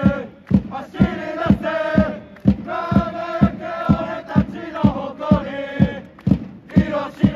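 Football supporters chanting a song in unison, backed by a drum struck steadily about twice a second.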